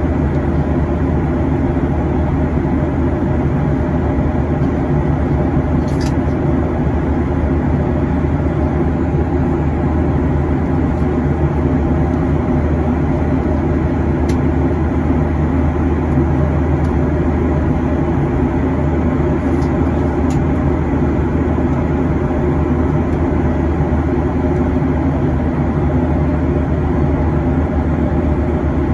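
Steady cabin roar of a Boeing 737-800 in flight, heard inside the cabin: the hum of its CFM56-7B engines mixed with the rush of air along the fuselage. There are a few faint clicks.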